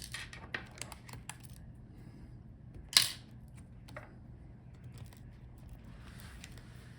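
Small metal clicks and light tapping from work on a laptop's tiny screws and metal bracket, with one sharp metallic clink about three seconds in, like a screw or small part set down on a hard surface.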